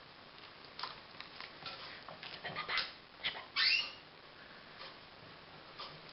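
Cavalier King Charles spaniel giving a few short, high squeaks while its head is held for eye care, one rising in pitch about three and a half seconds in, amid soft clicks and rustling from the handling.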